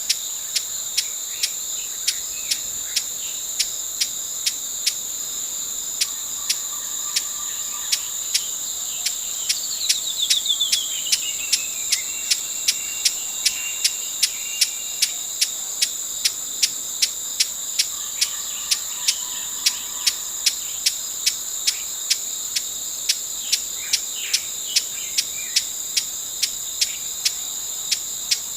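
Broad-billed hummingbird calling with sharp, dry chip notes about twice a second, with one quick falling chatter about ten seconds in. A steady high-pitched insect drone runs underneath.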